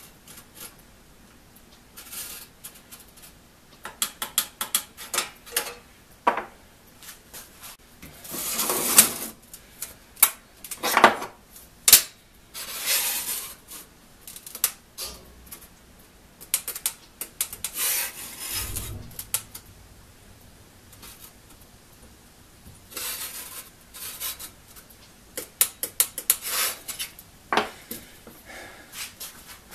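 Small steel saw-set gauge (a spider) being slid tooth by tooth along the steel blade of a one-man crosscut saw to check the set of each tooth: a run of small metallic clicks and scrapes, with a few longer scraping rubs. A dull bump about two-thirds through.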